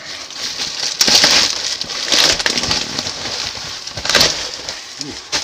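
Plastic wrapping and duct tape on a cardboard parcel crinkling and tearing as it is pulled open by hand, with the strongest tears about one, two and four seconds in.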